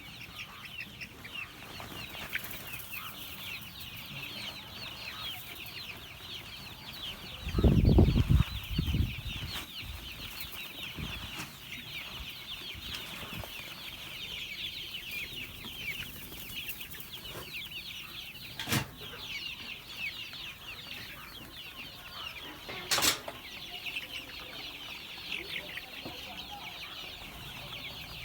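A flock of month-old chicks peeping continuously, many short high chirps overlapping. About eight seconds in there is a loud low rumbling thud, and two sharp clicks come later.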